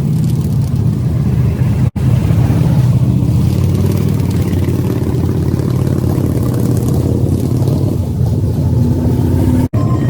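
Motorcycle engine running steadily at a low, even pitch. The sound cuts out completely twice for an instant, once about two seconds in and once near the end.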